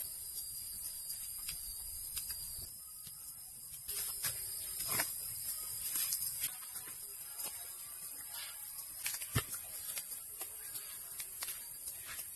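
Wood campfire crackling, with scattered sharp pops over a steady high hiss and thin whine. One heavier knock comes about nine seconds in.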